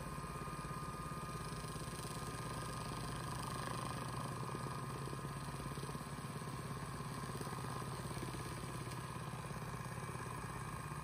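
Two electric spinning wheels, an Electric Eel Wheel 6 fitted with an LWS level-winding flyer and an Electric Eel Wheel Nano, running together at 1000 rpm. They make a steady whirring motor hum with a thin higher whine over it. It sounds like the Nano is the noisier of the two at this speed.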